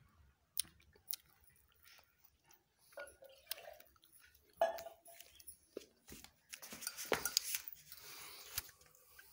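A toddler eating from a stainless steel bowl: scattered sharp clicks of a spoon on the steel and chewing, with a couple of short vocal sounds from the child. About seven seconds in comes a louder stretch of rustling and clatter as the phone is moved.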